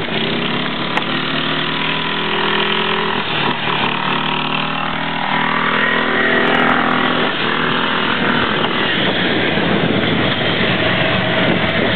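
Small engines of a Toro riding lawn mower and a golf cart running flat out, driving fast over grass, with a steady engine drone under a broad rushing noise.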